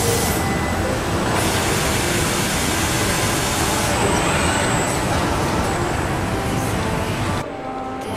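Dense, steady factory-floor noise from a car body shop's robotic production line: machinery, conveyors and a strong hiss blended together. Near the end it cuts off suddenly to a much quieter background.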